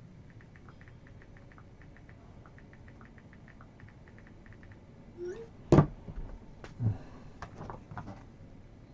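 A run of faint light ticks, then a short squeak, a loud sharp knock about six seconds in, and several lighter knocks and clicks after it.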